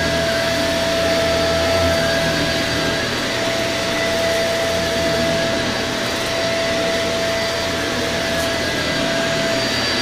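Shark Rotator Lift-Away upright vacuum cleaner running steadily as it is pushed over carpet: an even rush of air with a constant whine.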